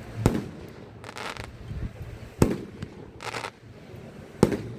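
Fireworks display: three loud bangs about two seconds apart, with a short burst of hissing crackle between each pair.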